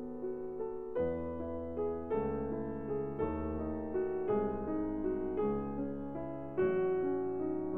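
Slow background piano music: sustained chords, a new one struck about once a second.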